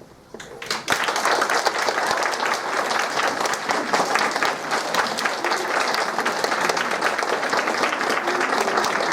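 Audience applauding, starting about a second in and continuing as steady clapping.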